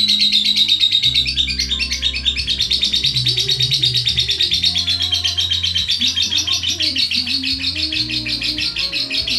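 Young lovebird chattering in one long, unbroken run of rapid high chirps, the continuous 'ngekek' song. Background music plays underneath.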